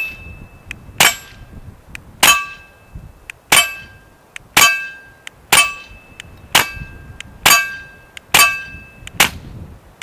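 Suppressed .22 LR shots from a Taurus TX22 compact pistol fitted with a 3D-printed plastic suppressor: about ten sharp cracks, roughly one a second. Many of the shots are followed by a short metallic ring.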